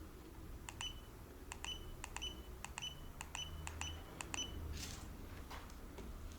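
Key beeps of a handheld electronic device: about a dozen short, high beeps, many in quick pairs, as its buttons are pressed in turn.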